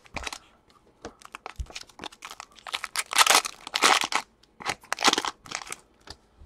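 Foil wrapper of a Prizm basketball trading-card pack crinkling and tearing as it is ripped open by hand, a run of sharp crackles that is loudest about three to four seconds in.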